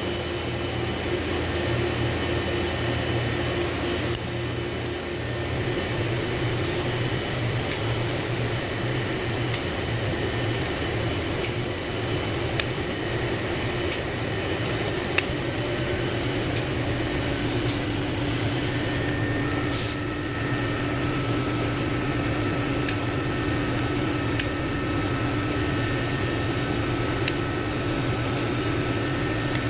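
Steady mechanical hum with a few faint, sharp clicks scattered through it.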